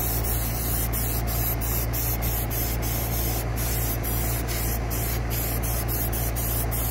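Aerosol can of air-filter oil spraying a long, steady hiss onto a cotton-gauze K&N panel air filter, recharging it after cleaning. A steady low hum runs underneath.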